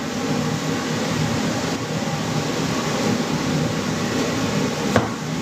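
Steady ventilation hum, with one sharp tap of a knife on a plastic cutting board near the end.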